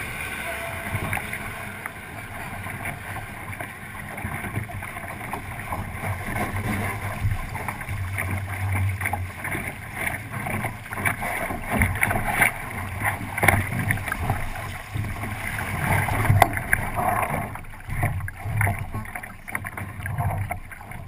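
Water rushing and slapping against the hull of a 29er sailing skiff under way, with wind noise and irregular knocks and slaps throughout.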